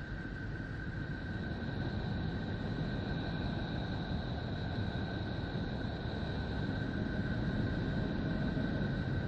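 Space 'planet sound' recording: a steady, rough, rumbling drone with two thin high tones held unchanging above it, slowly growing a little louder.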